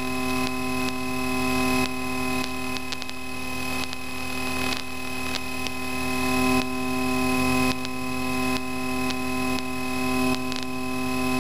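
Steady electrical hum and hiss on a Cessna 152's intercom audio, with the aircraft's engine running underneath at taxi power.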